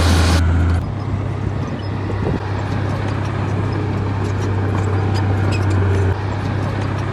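Diesel engine of heavy earthmoving machinery running steadily with a low hum, with scattered faint clicks and knocks. The sound drops abruptly in level just under a second in.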